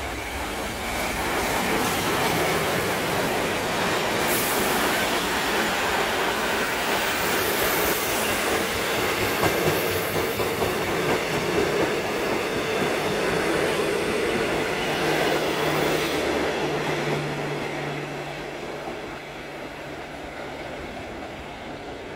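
Victorian Railways R class steam locomotive R761 and its train of carriages passing close by on the rails. The sound builds within the first two seconds, stays loud while the carriages go by, and dies away over the last few seconds as the train recedes.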